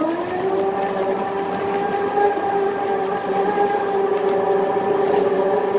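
Go-kart motor whine that rises in pitch as the karts pull off, then holds one steady tone as they cruise in formation.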